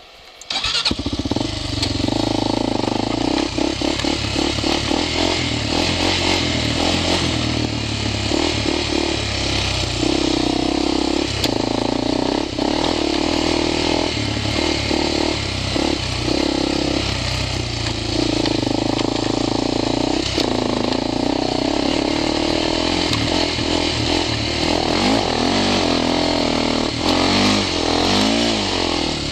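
Honda sport ATV engine running hard under throttle, its pitch rising and falling as it revs and shifts through the gears, with brief breaks in the engine note.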